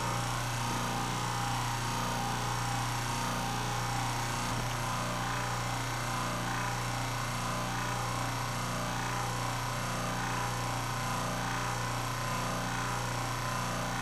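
Salvaged washing machine induction motor running steadily with its centrifugal clutch pulley spinning: a strong, even electrical hum under a whirring hiss.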